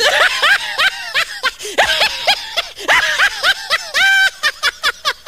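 High-pitched laughing sound effect: a quick run of rising-and-falling snickers, about four or five a second, with one longer held note about four seconds in.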